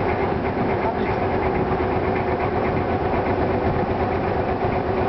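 Small riverboat's engine running steadily with a fast, even beat and a steady hum, heard from on board.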